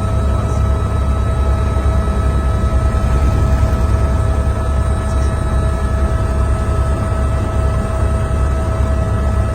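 Helicopter in flight: a steady low rumble with a constant high whine over it.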